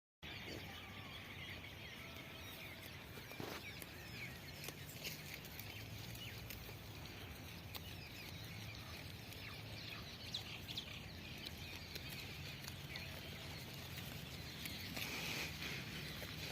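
Birds calling with many short chirps over a low steady hum, with scattered clicks.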